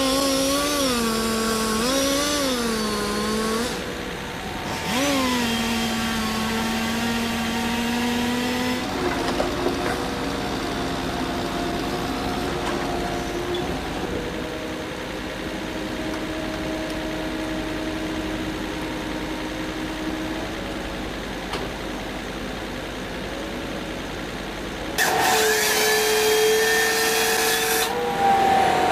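Saw engines running and cutting wood, their pitch rising and falling with the load, as of chainsaws felling trees. The sound changes abruptly about 9 seconds in and again near the end, as one clip gives way to another.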